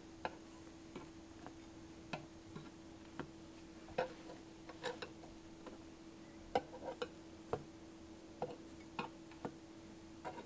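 Small metal offset spatula clicking and scraping against a dark metal madeleine pan as freshly baked madeleines are prised out of their cavities one by one: irregular light clicks, about one or two a second, some in quick pairs, over a faint steady hum.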